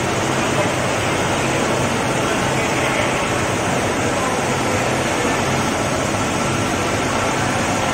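Steady fish-market background noise: an even rushing din with a faint low hum, with no distinct knife strikes standing out.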